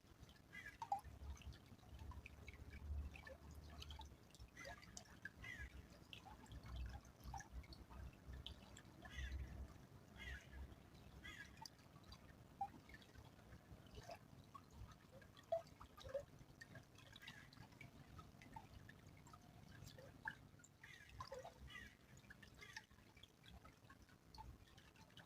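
Small stream trickling and dripping faintly: scattered, irregular plinks of water, with a low rumble under it during the first half.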